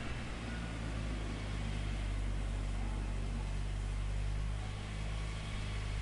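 Heavy diesel construction machinery engine running steadily at a constant speed, a low even hum with broad mechanical noise over it.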